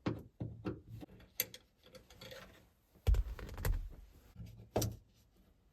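Irregular small clicks and taps of hand work with a screwdriver on a Ford truck's dome light fixture as its Phillips screws come out, with two heavier knocks, about three seconds in and near five seconds.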